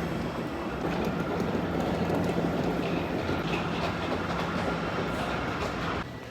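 Steady rumble of a moving vehicle with a low hum underneath, cutting off suddenly near the end.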